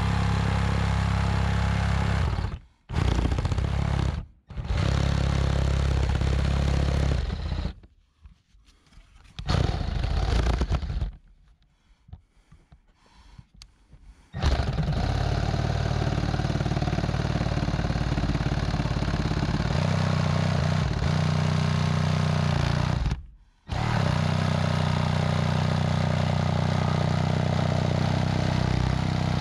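Power saw cutting a circular hole through wooden wall siding, run in long stretches with short stops, and a longer pause of light clatter as the saw is repositioned partway through.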